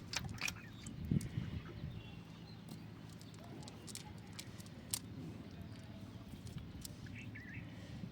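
Faint outdoor sounds: scattered small clicks and knocks over a low rumble, with a short wavering bird call near the end.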